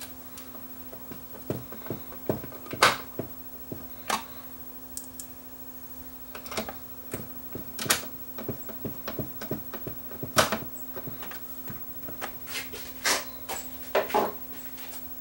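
Irregular clicks and taps of a screwdriver working screws and of hands handling a circuit board and its plastic chassis, over a faint steady hum.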